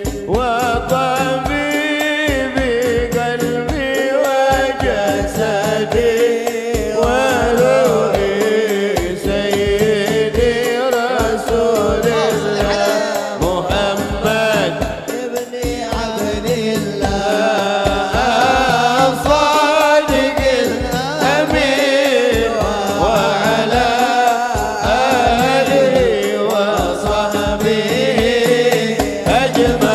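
Sholawat, an Islamic devotional song, sung by a man into a microphone over a PA, backed by a hadroh ensemble of hand frame drums and bass drums beating a steady rhythm.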